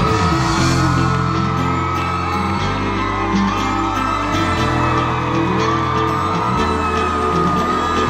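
A live band playing pop-rock music, with held bass notes that change every second or two, and whoops and yells from the crowd.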